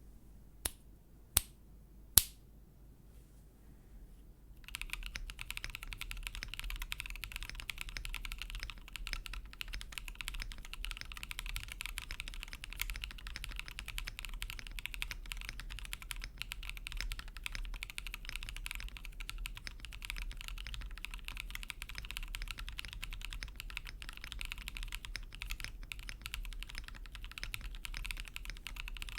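Three sharp, separate clicks in the first couple of seconds, the last one loudest. Then, from about five seconds in, fast steady typing on a TeneT custom mechanical keyboard: light tactile switches (Geon baby blue tactile sliders in Gateron Gift housings, 55 g springs) on a gasket-mounted polycarbonate plate with plate foam.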